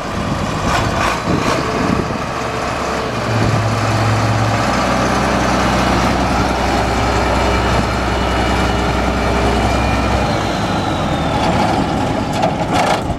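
International Harvester 3588 2+2 tractor's six-cylinder turbo diesel engine running steadily as the tractor moves up close, with a faint high whine that falls in pitch near the end.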